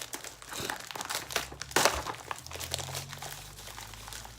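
Packaging crinkling and crackling as a package is torn open by hand, with one louder crackle about two seconds in.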